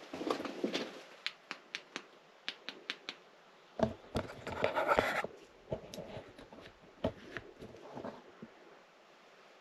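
Footsteps crunching over loose broken rock in a narrow rock tunnel, with sharp clicks of stones shifting underfoot. The crunching comes in two thicker bursts, at the start and again around the middle, with scattered clicks between, and dies away near the end.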